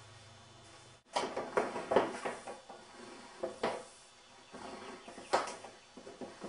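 Irregular knocks, clicks and rustling of hands-on electrical rough-in work: cable and tools being handled against wooden studs. There is a faint steady hum for the first second, then the clatter begins abruptly.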